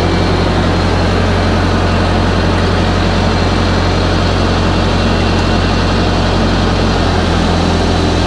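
Heavy diesel engine idling steadily close by, a constant low hum.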